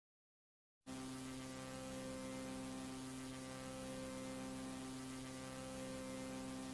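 A steady electrical hum with a faint hiss of static, starting abruptly after nearly a second of dead silence.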